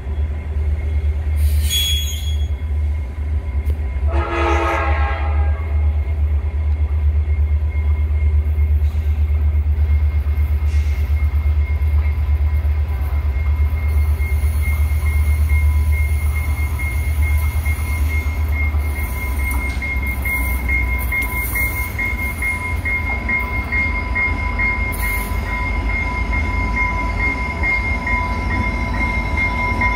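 Diesel commuter train approaching the station. A train horn sounds one short blast about four seconds in, over a low steady rumble. From a little past halfway the locomotive's bell rings with even, repeated strokes as the train closes in.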